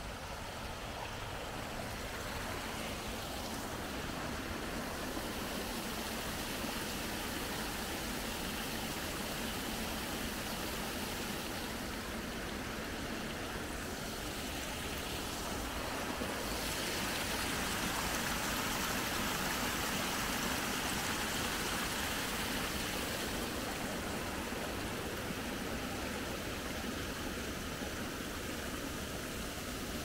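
Steady rushing of water through a small concrete weir, growing a little louder just past the middle.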